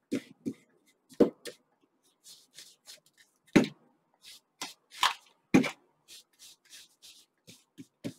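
A small foam ink applicator dabbing and rubbing ink onto a paper strip: a string of short, irregular scuffing dabs, with a few louder thuds as it is pressed down on the page.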